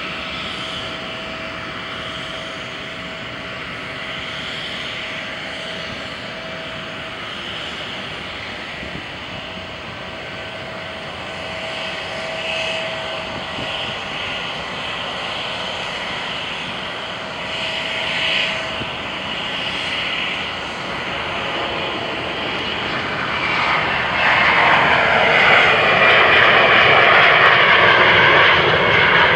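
Boeing 777F cargo jet running on the apron while it is pushed back, a steady jet whine and rush with thin tones that come and go. It swells markedly louder about 23 seconds in as the jet swings round to face the camera.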